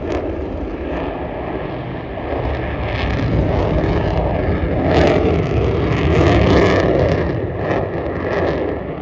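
Fighter jet flying past overhead: a loud, rough jet-engine roar that swells to its loudest about five to seven seconds in, then eases off.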